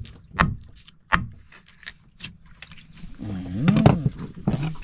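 A few sharp knocks about a second apart, then, about three seconds in, a drawn-out wordless vocal sound that bends up and down in pitch, with a short one just after.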